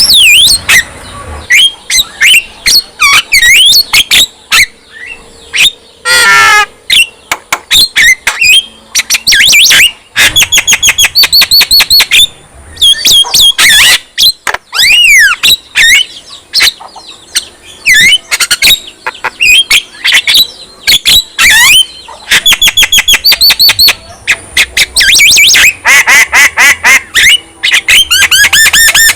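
Javan myna (jalak kebo) singing a loud, varied run of sharp clicking chatter, rapid repeated notes and whistled notes that sweep up and down, in bursts with short pauses.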